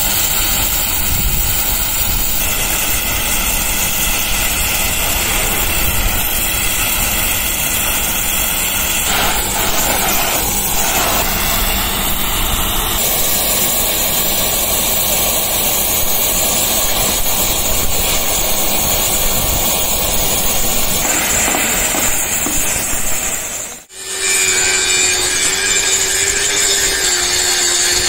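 Gas cutting torch hissing steadily as it cuts through a steel truck chassis rail. After a sudden break near the end, an angle grinder runs against the steel with a steady whine.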